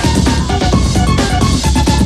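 Early-1990s electronic dance music from a continuous DJ megamix: a steady driving beat with a short synth melody repeating over it.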